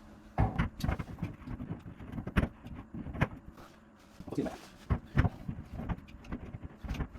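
Irregular clicks, taps and light rattles of small hard plastic and metal parts being handled and fitted together, from a shower unit being reassembled.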